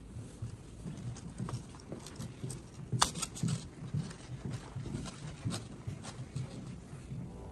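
Footsteps on a hard polished floor, an irregular series of low thumps, with a sharp knock about three seconds in.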